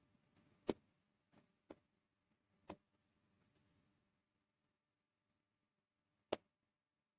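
A few short, sharp clicks and taps from wires and tools being handled during electrical wiring, the loudest about two-thirds of a second in, three smaller ones over the next two seconds and one more near the end, with near silence between.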